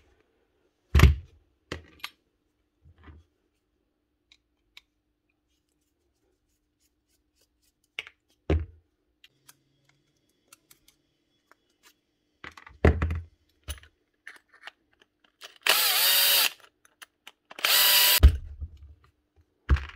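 Scattered knocks and clicks from handling tools and parts, then a power drill runs twice near the end in short bursts of about a second each, a couple of seconds apart.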